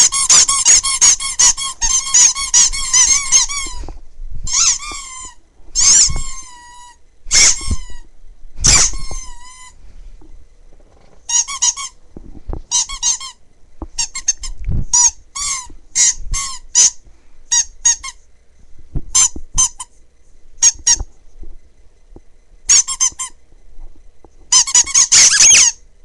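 Handheld squeaky toys squeezed over and over, giving high, wavering squeaks: a fast run at first, then single squeaks and short quick clusters, and another fast run near the end.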